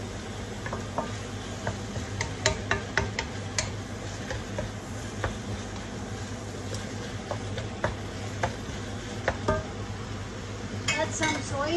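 Wooden spatula stirring and scraping ground meat around a nonstick wok, with scattered light taps of the spatula against the pan over a steady sizzle of frying.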